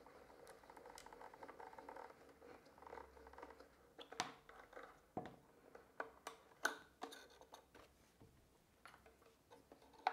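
Quiet hand handling of a violin's strings and pegs while it is being strung. A faint rustle is heard for the first few seconds, then about a dozen light, scattered clicks and taps.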